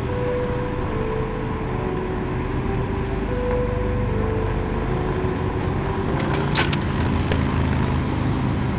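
A group of cruiser motorcycles riding together, their engines running with a steady low rumble. A few sharp clicks sound about three quarters of the way through.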